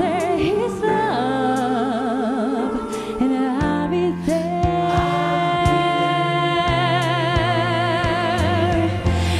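Song with a solo voice singing slow, sustained lines with vibrato, holding one long note through the middle, over a backing track with steady bass notes.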